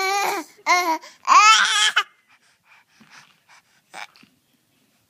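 Baby squealing: three long, high-pitched squeals with a wavering pitch in the first two seconds, then only faint breaths and small mouth noises.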